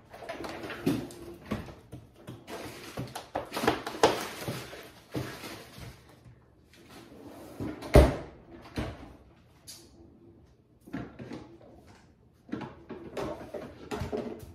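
Kitchen cupboard and drawer doors being opened and shut during a search, making a series of irregular knocks and clatters with handling noise between them. One sharp bang comes about eight seconds in.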